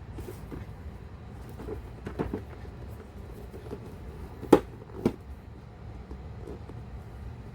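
Light knocks and clicks from handling a plastic figure and its packaging: a few soft taps about two seconds in, then two sharp clicks half a second apart midway, the first the loudest. A steady low hum runs underneath.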